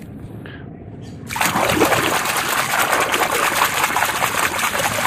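Water splashing and trickling as a toy truck is washed by hand in muddy water, starting about a second in and then going on steadily.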